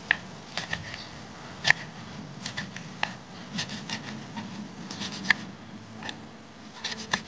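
Kitchen knife slicing red chilies on a wooden cutting board: a run of sharp, irregular taps as the blade hits the board, the loudest about a second and a half in and again past five seconds.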